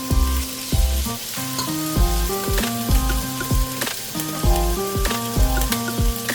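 Food sizzling as it fries in a pan, a steady hiss, under background music with melody notes, deep bass notes and a regular beat.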